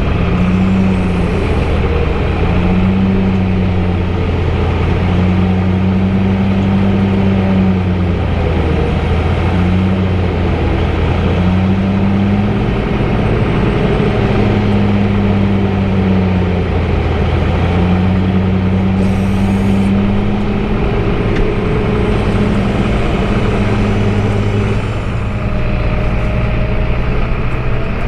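Heavy diesel machinery running steadily and loud: the tractor loader and the tub grinder grinding hay. A deep hum wavers and swells every few seconds.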